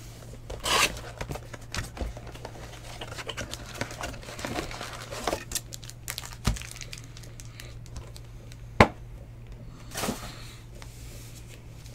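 Foil trading-card pack wrappers crinkling and rustling as packs are handled and pulled from a cardboard hobby box, with scattered small clicks. Two sharp knocks come in the second half, the later one the loudest.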